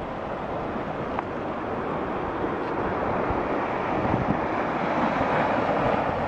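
Waves washing onto a sandy shore, the wash swelling a little louder about four seconds in, with wind rumbling on the microphone.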